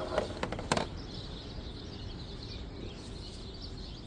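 A few light clicks in the first second, then steady outdoor background noise with faint bird chirps.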